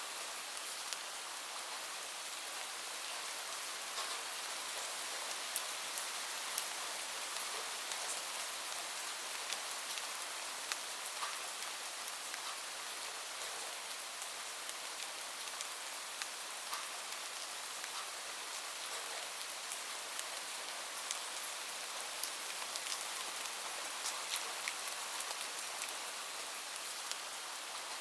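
Steady rain falling, an even hiss with many individual drops ticking sharply on a surface throughout.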